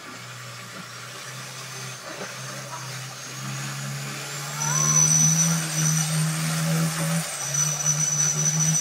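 Boat engine running under way. It rises in pitch and grows louder about halfway through as it revs up, then dips briefly near the end.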